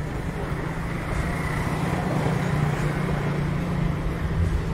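Street traffic: a motor vehicle's engine running with a steady low hum over road noise, growing a little louder about a second in.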